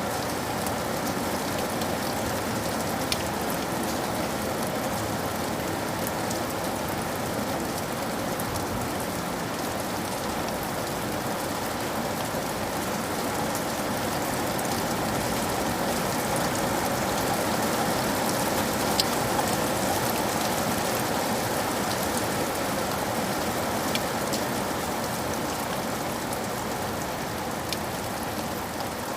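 Steady rain falling as an even hiss, with a few sharp ticks now and then.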